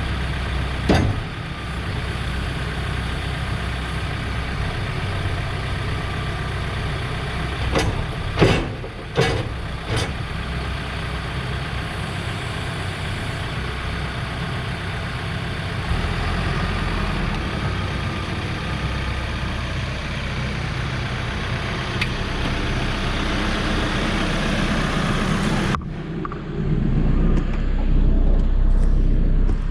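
2014 Case 580SN backhoe loader's diesel engine idling steadily, just after a cold start, with a few sharp knocks about a third of the way in. Near the end the sound turns suddenly duller and deeper, the low rumble louder.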